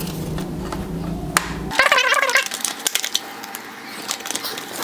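Plastic bottom cover of an HP Notebook 15 laptop being set back onto the chassis and pressed into place: handling noise, then scattered small plastic clicks and knocks that come more often in the second half.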